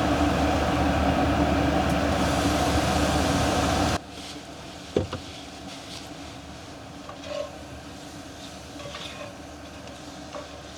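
Ground taco meat sizzling in a hot pan as salsa is stirred in, loud for about the first four seconds, then cutting off abruptly. What follows is quiet, with a sharp knock about five seconds in and a few faint clicks.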